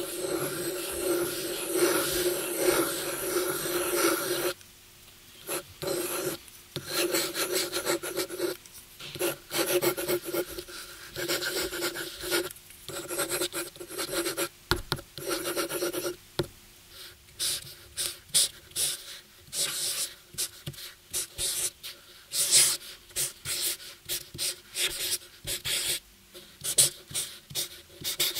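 A steel dip-pen nib scratching across paper in continuous strokes. A little past halfway it gives way to a felt-tip marker (Edding) drawn over the paper in short separate strokes.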